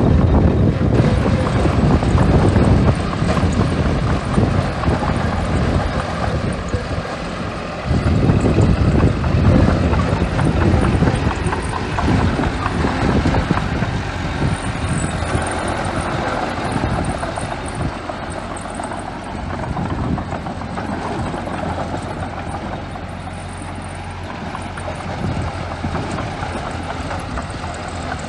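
Small bulldozer's diesel engine running hard under load while pushing sand. It drops off briefly about eight seconds in, picks up again, then eases gradually.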